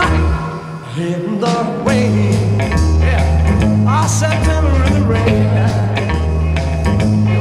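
Early-1960s rock and roll band recording: a male lead vocal over electric guitars, bass guitar and drums, the bass stepping from note to note under the beat. About four seconds in the voice slides up into a held note.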